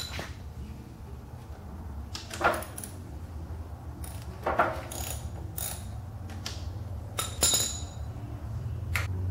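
Scattered clicks and knocks of hands and tools at the primary drain plug of a Harley-Davidson Softail and a foil drain pan as the plug is taken out to drain the primary, over a steady low hum.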